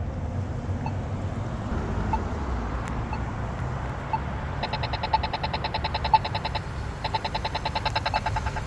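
Polara iNS accessible pedestrian push-button signal ticking: a faint locator tick about once a second, then, about four and a half seconds in, a rapid tick of about ten a second that marks the walk phase, breaking briefly near seven seconds and resuming. Traffic rumbles underneath.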